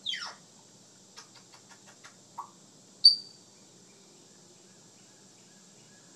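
African grey parrot making mimicked sounds: a falling whistle at the start, then a quick run of about eight clicks, a short squeak, and a sharp high kiss-like squeak about three seconds in, the loudest sound of the stretch. These are the parrot's imitated kissing noises.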